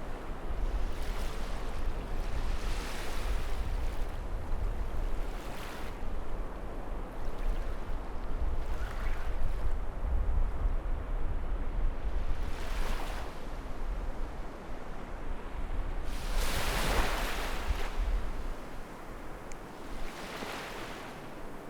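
Sea waves breaking and washing up a beach in strong wind. Each wash of surf swells and fades every few seconds, the biggest about two thirds of the way through, over a steady low rumble of wind.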